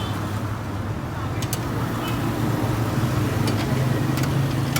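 An engine running steadily, its pitch stepping up slightly about three seconds in, with scattered light clicks.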